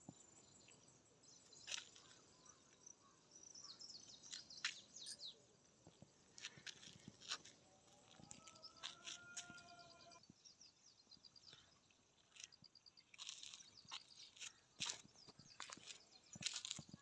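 Quiet rural outdoor ambience with faint, scattered bird chirps and a brief, drawn-out call near the middle. Short clicks and crackles of a handheld phone being moved and carried over rock come through more toward the end.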